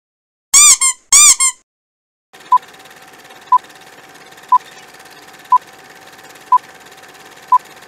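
Two short, loud squeak sound effects whose pitch rises and falls, each with a quick echo, then a film-countdown leader effect: a steady hum over crackling projector-style hiss, with a short beep once a second.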